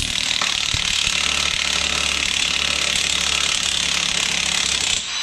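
Cordless impact wrench hammering steadily on the forcing screw of a differential bearing puller, drawing a stubborn carrier bearing off a Ford 8.8 limited-slip carrier. It runs without a break and stops about five seconds in.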